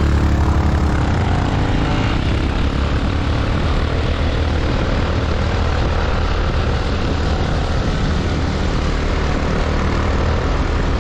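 Motorcycle engines running at road speed, mixed with wind and road rumble on an action camera's microphone. Near the start an engine note rises briefly as it revs.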